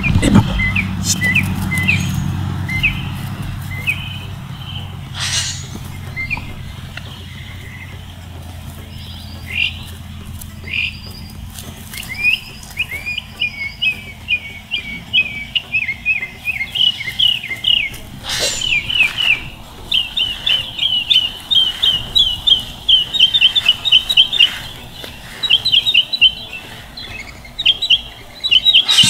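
Birds chirping in quick runs of short high notes, growing busier and louder through the second half. A low rumble fades away over the first several seconds, and two sharp knocks come about five seconds in and about two-thirds of the way through.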